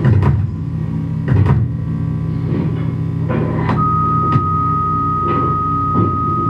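Electronic sound-art piece: a steady low droning hum struck by sharp glitchy clicks about once a second, with a steady high pure tone coming in just past halfway and holding on.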